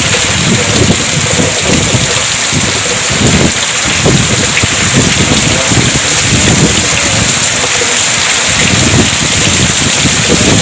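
Heavy rain pouring steadily, driven by strong gusting wind that buffets the microphone in irregular low rumbles.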